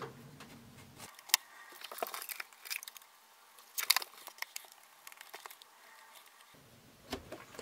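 Paintbrush handle poking and scraping into loose soil substrate in a small plastic cup, digging a starter burrow: faint scratching and crackling with a few sharp clicks against the plastic.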